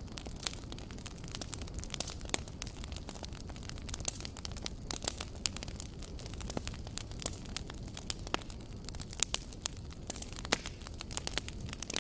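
Campfire burning: a steady low rumble of the flames with frequent irregular sharp crackles and pops of burning wood.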